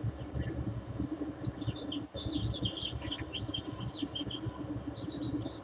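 Small birds chirping in quick, short bursts over a steady low rumble.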